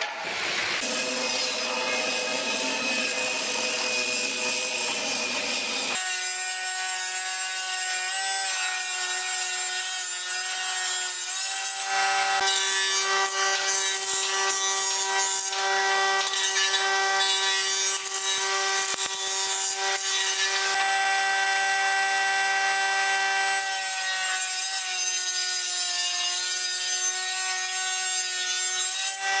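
Stationary woodworking machine running with a steady whine and cutting noise, its pitch sagging briefly several times as rough-sawn boards are fed through: a jointer planing timber. The first few seconds hold a broader hiss before the whine sets in about six seconds in.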